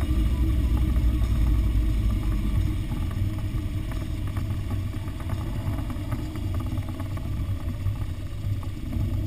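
Engine and road noise of a vehicle driving steadily up a mountain road, a steady low rumble that eases slightly after the first few seconds.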